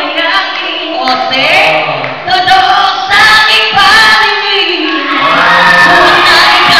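Women's voices singing together, loud, with long held notes in the second half.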